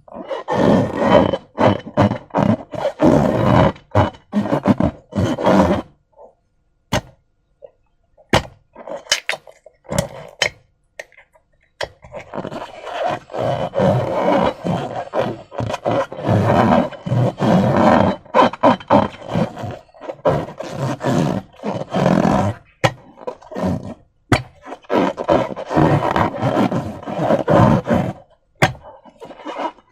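Wet slime being squeezed and worked by hand, with dense runs of squelching, crackling pops. It thins to scattered single clicks for several seconds, then picks up again.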